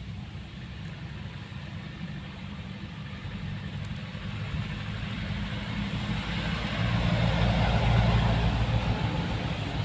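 Road traffic running past steadily, with one vehicle's rumble swelling as it passes close, loudest about eight seconds in and then easing.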